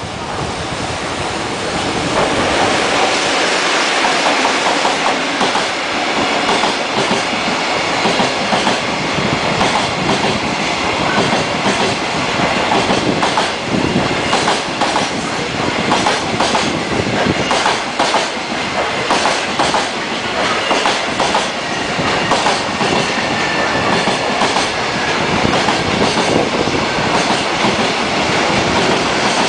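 Electric-hauled JR Freight container train passing at speed, its wagon wheels clattering rapidly over rail joints in a long, dense run of clicks. The sound swells over the first couple of seconds as the train arrives.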